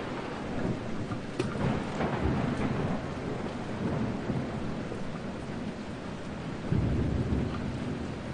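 Thunderstorm: steady rain with rolling thunder rumbling through, swelling to its loudest near the end, with a few sharp drips.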